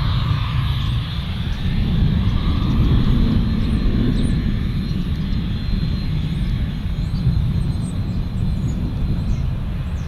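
Bombardier Learjet 35A's twin Garrett TFE731 turbofan engines running at taxi power: a steady jet rumble with a thin, high, steady whine.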